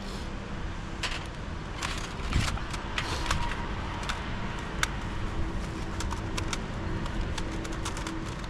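Scattered light clicks and taps of small hard objects being handled, over a steady low rumble.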